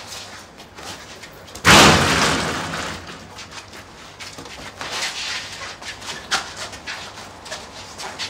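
A sudden loud crash of impact about two seconds in, fading over about a second, followed by scuffling with scattered light knocks and scrapes as two men struggle.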